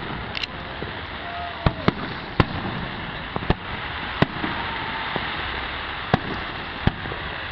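Aerial firework shells bursting: about eight sharp bangs at uneven intervals, over a steady background hiss.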